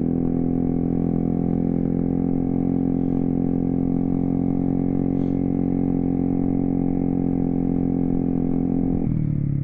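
Single-cylinder four-stroke engine of a Yamaha Zuma 125 scooter fitted with a 175cc big bore kit, running under throttle while riding. Its pitch rises right at the start, holds steady, then falls about nine seconds in.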